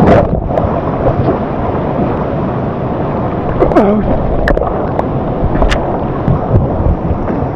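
Steady rush of a waterfall and its churning plunge pool heard at the water's surface, with the camera coming up out of the turbulent water right at the start, and a few sharp splashes and drips about halfway through.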